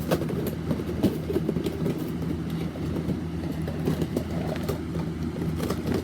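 Small plastic fidget toys being handled, with many light scattered clicks and rattles, over a continuous low hum.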